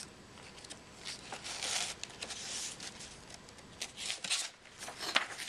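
Soft rustling of paper about a second in, then a few light clicks and crinkles near the end as a picture book's page is handled and turned.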